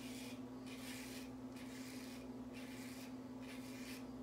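A single-edge safety razor with a GEM blade scraping through five days of stubble on the neck in about five short, raspy strokes. A steady low hum runs underneath.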